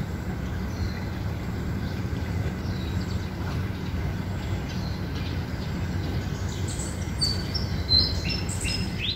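Outdoor morning ambience: a steady low rumble with birds chirping, the chirps coming thicker and louder over the last two seconds.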